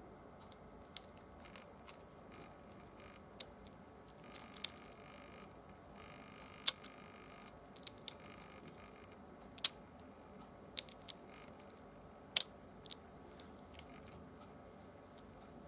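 Light, sharp clicks and ticks at irregular intervals as a flexible magnetic viewing film is handled and lifted over a lattice of small magnet balls, with a faint steady hiss underneath.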